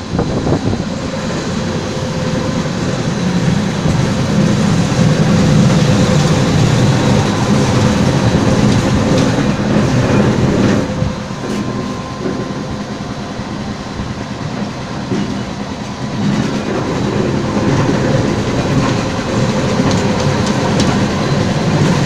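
Diesel road roller running and rolling its steel drum over fresh asphalt: a steady low engine noise that swells, eases off around the middle, and grows loud again as the roller comes close near the end.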